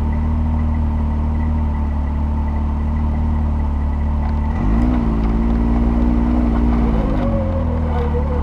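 Off-road vehicle's engine idling steadily, heard close from the hood, then revving up about halfway through as the vehicle pulls away. It holds the higher revs for a couple of seconds and drops back near the end.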